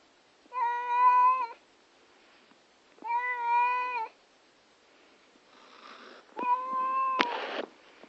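A domestic cat meowing three times, each call held at a steady pitch for about a second, a few seconds apart. The calls come from an upset cat. A short, loud rush of noise follows right after the third meow.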